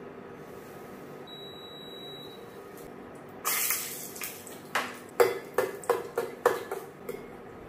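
Cashews tipped into hot ghee in a small stainless-steel kadai, a short rush of sound, then a metal spoon clinking against the pan about seven times as the nuts are stirred to fry.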